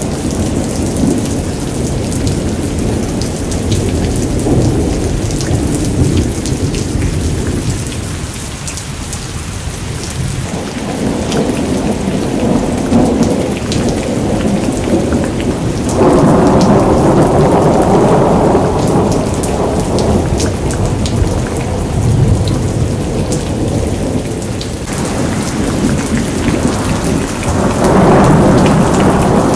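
Heavy rain pattering down with thunder rumbling. A louder rumble starts suddenly about halfway through and another swells up near the end.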